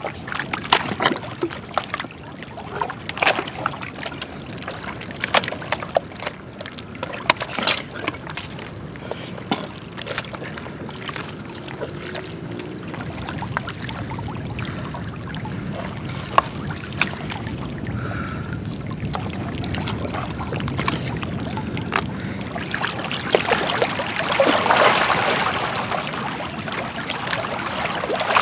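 Thick wet mudflat mud squelching and popping with many small sharp smacks as a person crawls through it, then water sloshing and trickling, growing louder in the last few seconds as she moves into the shallow water.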